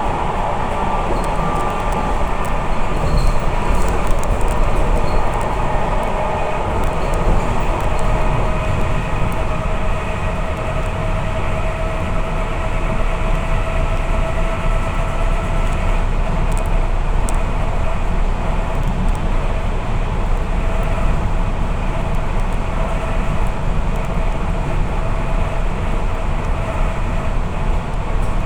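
Suburban electric train running along the line, heard from inside the carriage: a steady rumble of wheels on track, with a steady whine over it.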